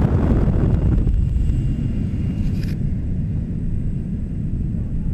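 Steady low rumble of wind and aircraft engine noise through the open door of a jump plane in flight, louder and brighter for about the first second.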